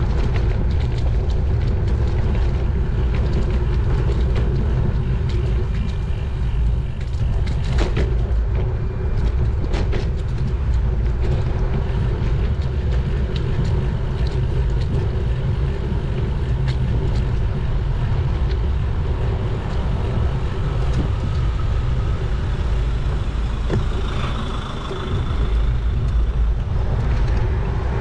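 Road traffic and the rush of air while riding a road bike along a city street: a steady low rumble, with a few sharp clicks about eight and ten seconds in.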